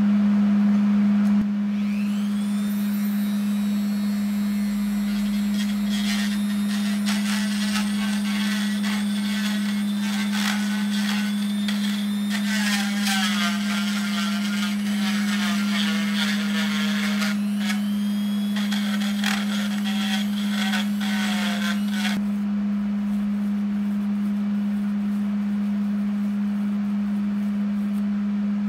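Dremel rotary tool spinning up about two seconds in and working over a cast aluminum cylinder head, cleaning the corroded spots before welding. Its high whine wavers and shifts in pitch under load and stops abruptly past the twenty-second mark. A steady low hum runs underneath the whole time and is the loudest sound.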